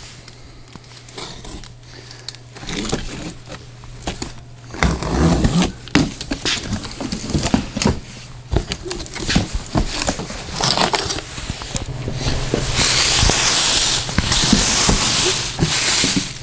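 Unboxing noises: a cardboard box and its packing being handled, with scrapes, knocks and crinkling, and a stretch of loud packing rustle in the last few seconds. A faint steady low hum runs underneath.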